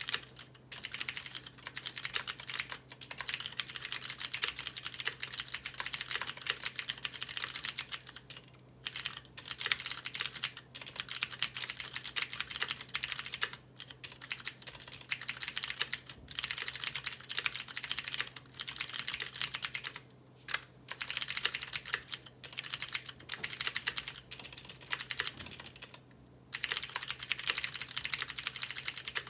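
Typing on a Cherry MX Board 3.0S mechanical keyboard with Cherry MX Blue switches: fast runs of crisp clicky keystrokes, broken by brief pauses every few seconds.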